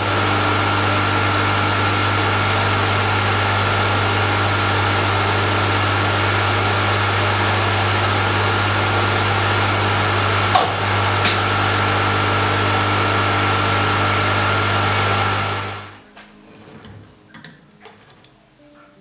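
Schaublin 102 watchmaker's lathe running steadily while the outside diameter of a brass wheel blank is turned to size: a steady motor hum with a thin high whine over a hiss. There are two small clicks about ten and eleven seconds in. The running stops abruptly about sixteen seconds in, leaving only faint handling clicks.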